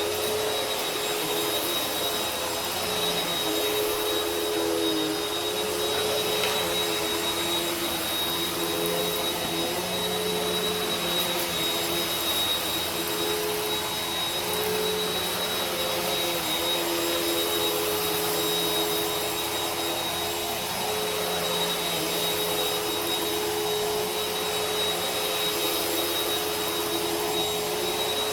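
Vacuum cleaner running steadily: an even hiss of rushing air over a constant motor whine.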